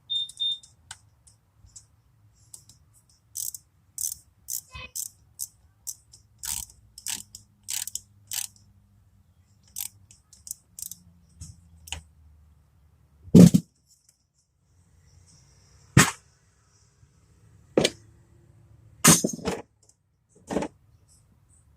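Hand tools at work on a car's starter: irregular metallic clicks and clinks, including runs of ratchet-like clicks, with a few louder knocks over a faint low hum.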